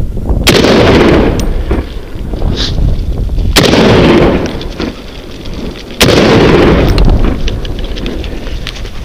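Three hunting rifle shots, about three seconds apart, each a sharp crack followed by a long echo rolling back off the surrounding rock.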